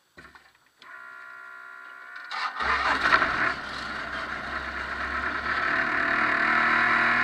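Formula 2000 race car's engine being started: a steady whine for about a second and a half, then the engine catches about two and a half seconds in, revs briefly, and settles into steady running.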